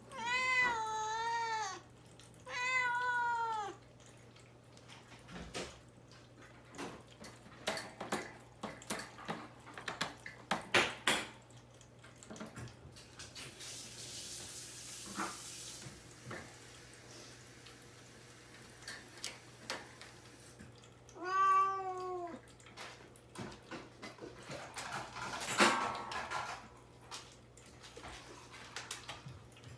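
A caged young cat meows three times to be let out: two calls near the start and one about two-thirds of the way through, each slightly rising then falling. Scattered clicks and knocks fall between the meows.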